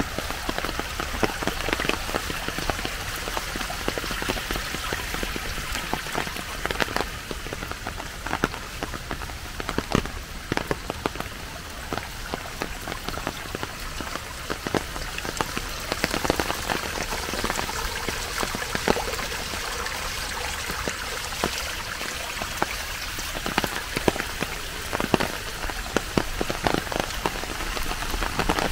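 Steady rain falling, with many separate drops striking close by.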